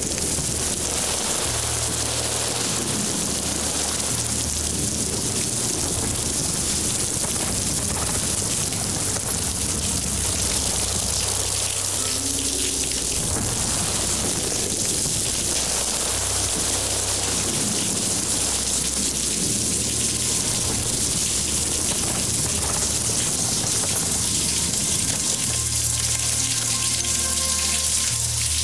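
Steady heavy rain under a low, sustained music drone that drops out briefly a few times.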